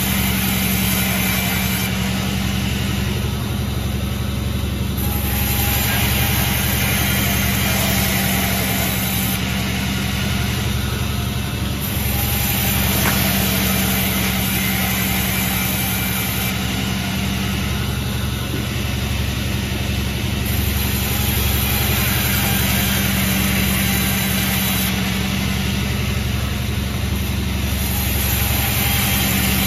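Sawmill machinery running steadily, with a constant low engine hum; the higher, noisier part of the sound swells and dips every few seconds.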